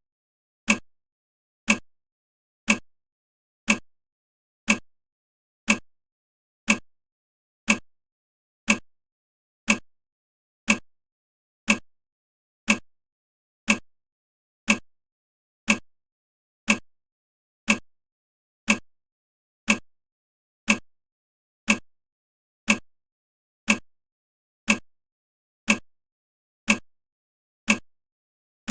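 Countdown timer ticking once a second: a short, sharp tick every second, evenly spaced, with silence between the ticks.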